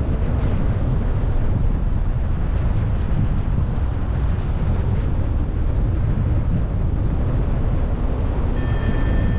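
Strong wind rushing over the camera microphone during a paraglider flight, a steady noise heavy in the low end. Near the end a short, steady electronic beep from the flight instrument sounds.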